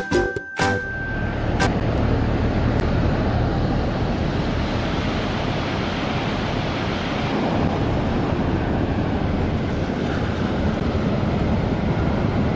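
Sea waves breaking and washing up onto a sandy beach in a steady rush. The last notes of a light tune stop about a second in.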